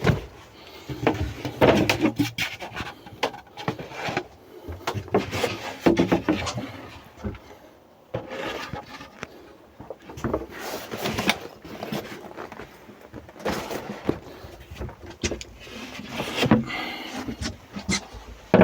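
Plywood panels and mats being lifted, slid and stacked by hand, with irregular wooden knocks and scraping.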